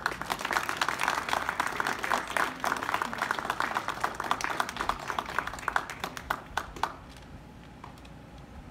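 Crowd of children and adults applauding, a dense patter of hand claps that thins out and stops about seven seconds in.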